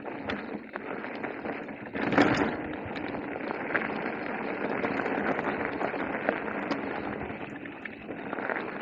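Electric mountain bike riding down a rocky trail: tyres running over loose stone with constant rattling and clicking from the bike, and a louder knock about two seconds in.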